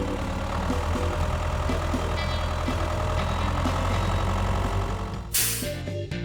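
Heavy vehicle engine running steadily with a low rumble, with a short loud hiss a little over five seconds in.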